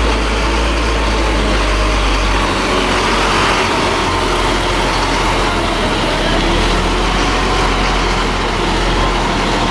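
A heavy road vehicle's engine running as it rolls slowly past close by, with a steady low drone and tyre and road noise.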